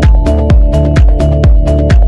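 Electronic dance music with a steady kick drum about two beats a second, each kick falling in pitch, and hi-hat ticks between the beats over held synth notes.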